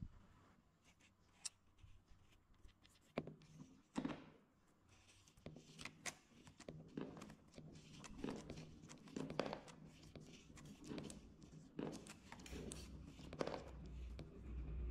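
Marbles released one at a time from a cardboard gate, clicking against each other on a corrugated cardboard chute and dropping onto a modeling-clay track: a few separate clicks at first, then a busy run of light knocks from about five seconds in, with a low rumble near the end.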